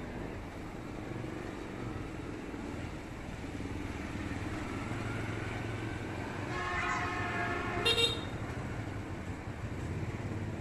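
Road traffic running steadily, with a vehicle horn sounding about seven seconds in and a short, sharp toot at about eight seconds.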